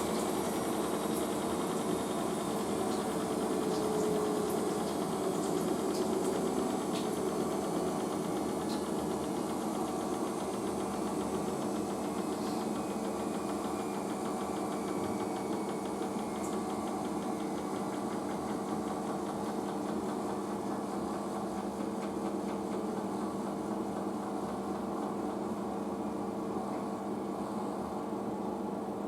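Asko front-loading washing machine spinning its drum at about 800 rpm: a steady motor hum holding one pitch, with a few faint ticks.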